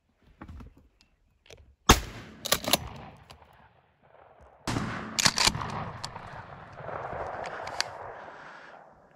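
Two shots from a Remington 870 pump-action shotgun about three seconds apart, the first the loudest. Each is followed within a second by a quick double clack as the pump slide is worked.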